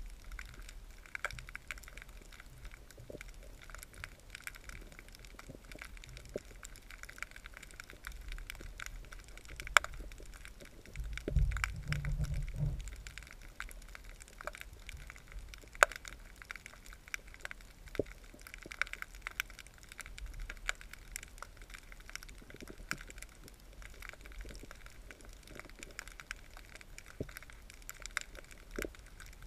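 Underwater crackling: scattered sharp clicks and snaps throughout, with a brief low rumble about eleven seconds in.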